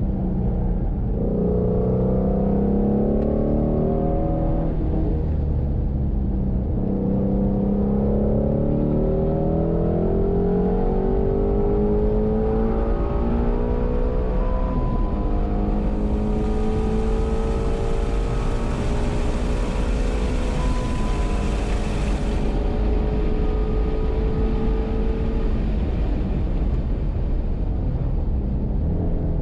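2018 Shelby GT350's 5.2-litre flat-plane-crank V8 heard from inside the cabin, driven hard on track: its pitch climbs on each pull and drops back at shifts and lifts. A steady hiss joins in for about six seconds in the middle.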